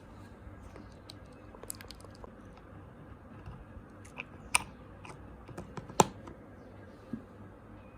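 Light, irregular clicks and taps from small objects being handled, with two sharper clicks about halfway through and again a little later.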